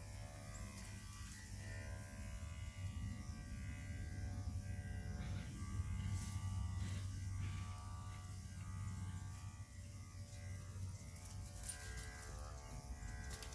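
Steady electric buzz and hum of a motor-driven dog grooming tool running, with a few light clicks in the middle.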